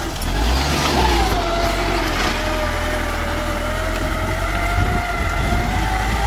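Farm tractor engine running steadily under load as it pulls a disc plough through dry, stony soil, its pitch rising briefly about a second in and then settling.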